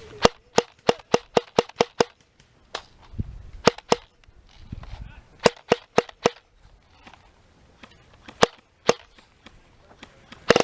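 Airsoft gun firing sharp single shots in quick strings. About eight shots come in the first two seconds, followed by scattered pairs and a run of four, ending in a quick double shot.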